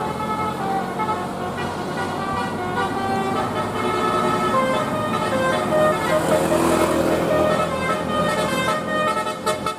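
Telolet bus horn playing a tune: several trumpet tones sounding together and stepping from pitch to pitch, over the low noise of the bus.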